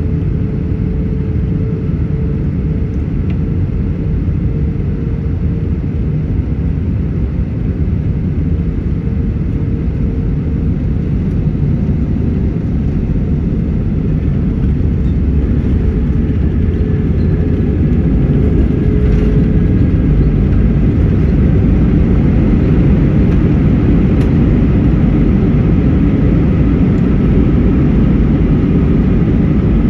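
Steady low rumble of an Airbus A321-200 airliner heard from inside the cabin, with a faint steady tone that fades out partway through. The rumble grows a little louder about halfway through.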